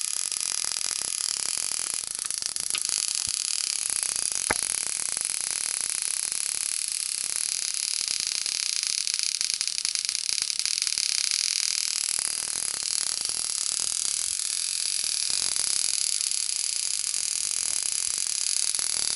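Spark gap of a homemade high-voltage oscillator for TIG arc starting, sparking continuously with a steady, loud hissing crackle and a couple of sharper ticks early on. This is the arc that jumps about 1.5–2 mm, the kind of spark that will start the arc at the torch.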